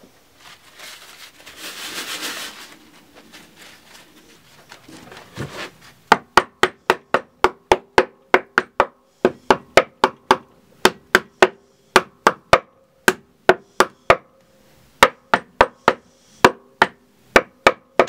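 Hammer driving nails into the timber of a small wooden birdhouse: a long run of sharp blows, about three a second, in several bursts with short pauses, each blow a hard knock with a brief ring from the box.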